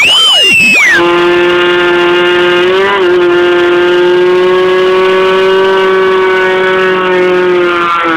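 Front-drive car doing a burnout with only one drive tyre spinning. Tyre squealing with a wavering, sweeping pitch in the first second, then the engine held at high revs with the spinning tyre in one steady scream for about seven seconds. The pitch wobbles briefly about three seconds in and drops at the very end.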